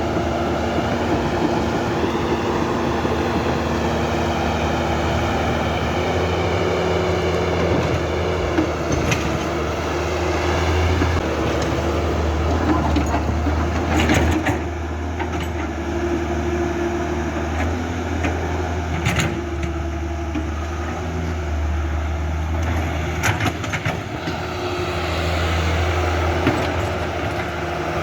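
Huina radio-controlled excavator's small electric motors and gearboxes whining steadily over a low hum, the pitch wavering up and down as it works. A few sharp clicks or knocks come in around the middle.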